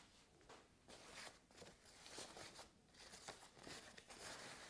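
Faint, scattered rustling and crinkling of a thin foam packing sheet being unwrapped by hand.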